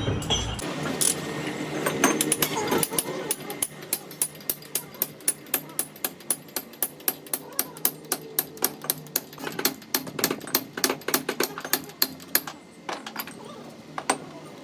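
Repeated sharp hammer blows on metal, evenly spaced at about three to four a second. They stop about twelve seconds in, with two more single blows near the end.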